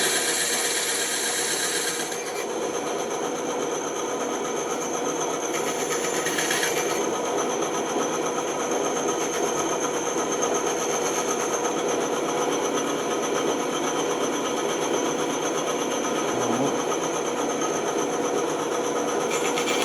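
Bandsaw running with a steady hum and whine. A brighter hiss rises briefly in the first two seconds and again around six seconds in.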